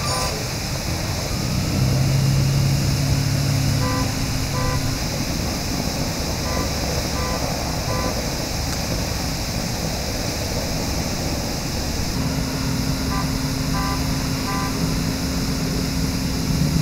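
Steady rushing hiss of water spraying high from a sheared fire hydrant, under the low hum of idling vehicles. A short electronic beep repeats about every half second in a few brief runs.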